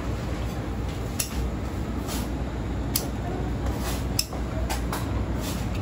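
Kitchen scissors snipping through the shell of cooked Alaskan king crab legs: sharp clicks and cracks roughly once a second, over a steady low background hum.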